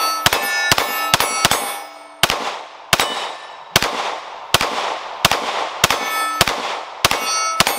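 About thirteen shots from a Glock 19X 9mm pistol, rapid at first, about two a second, then slowing to roughly one every three quarters of a second. Steel targets clang and ring after many of the shots, marking hits.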